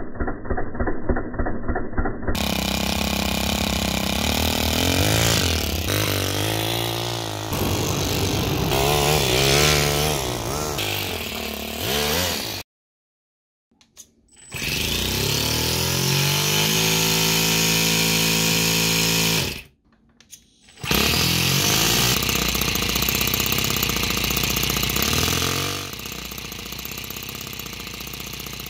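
Toyan four-stroke nitro model engine running and revving, its pitch rising and falling, in several short clips broken twice by brief silences; quieter and steadier near the end.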